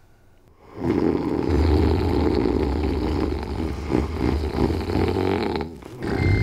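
Loud, rough snoring from sleeping men. It starts about a second in and stops just before the end.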